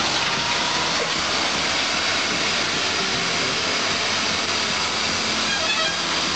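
Backhoe loader's diesel engine running steadily close by, heard as a dense, even mechanical noise.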